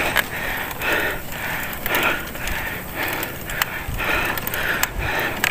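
A cyclist breathing hard and rhythmically, about two breaths a second, from the exertion of pedalling up a steep climb, with a few faint sharp clicks.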